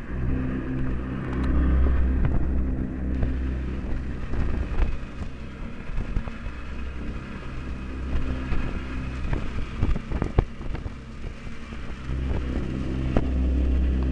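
Vehicle engine running steadily, heard from inside the truck with its window open; it swells louder twice. A few sharp knocks come in the second half.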